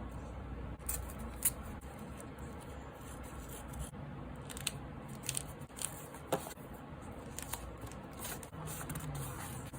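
Scissors cutting paper: irregular crisp snips and small clicks of paper being handled, over a low background hum.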